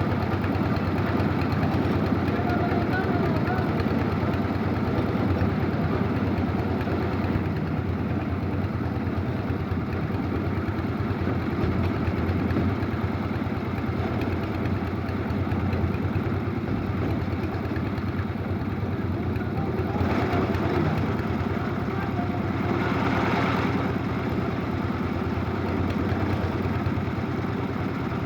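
A concrete mixer's engine running steadily, with a harsher, rattling stretch about twenty seconds in.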